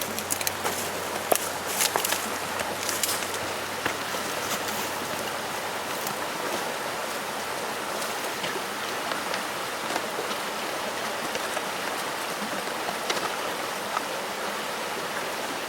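Trout stream running steadily, an even rush of flowing water. A few light clicks and taps sound over it in the first four seconds.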